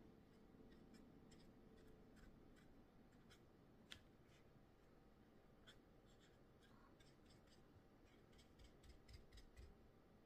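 Near silence with faint, scattered small taps and scratches of a paintbrush working acrylic paint on a paper plate, one sharper click about four seconds in.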